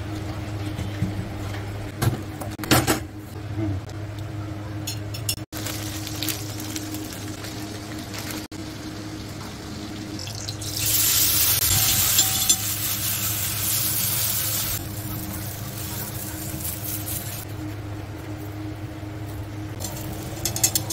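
Kitchen cooking sounds: a steel spoon clinking and scraping in an iron kadai of pav bhaji, then, about halfway through, a loud sizzle lasting about four seconds, butter frying on a hot iron tawa, over a steady low hum.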